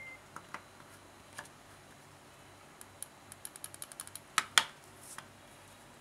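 Small plastic clicks and knocks from hands handling a wireless doorbell's plastic receiver and push button. A few soft clicks, then a quick run of small clicks about three seconds in, followed at once by two louder clicks close together and one last click.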